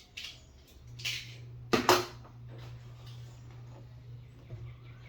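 Handling noise of foam model-jet parts being fitted together: a few scrapes and knocks, the loudest a pair of knocks about two seconds in, over a steady low hum.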